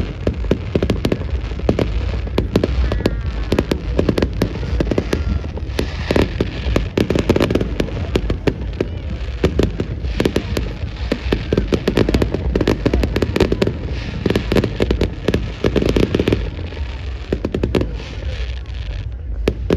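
Bonfire crackling, with a dense, continuous run of sharp pops and snaps.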